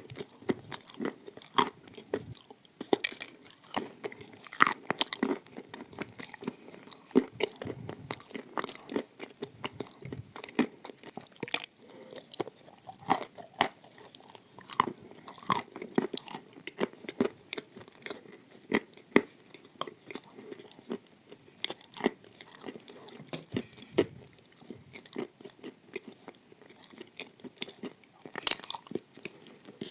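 Close-miked biting and chewing of dry edible clay: crisp, irregular crunches as pieces are bitten off and ground between the teeth, with the loudest crunch near the end.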